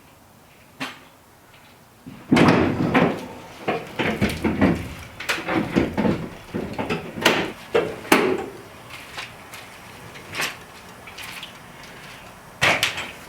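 A run of irregular knocks, clunks and rattles, like doors or panels being opened, shut and handled inside an empty cargo van, busiest in the first half and thinning out, with one more loud knock near the end.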